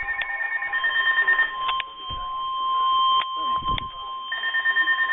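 Weather radio alert tones: a steady, high NOAA Weather Radio warning alarm tone starts about a second in and holds. Other buzzing tones sound at the start and again near the end, with a few sharp clicks in the middle and a faint voice underneath.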